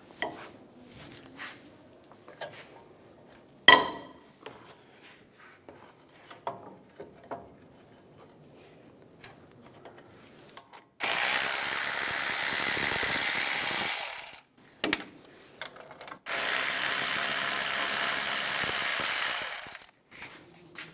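Caliper bracket bolts being removed with an 18 mm socket: faint ratchet clicking and a sharp crack about four seconds in, then a power tool runs twice, loud and steady for about three seconds each, spinning the bolts out.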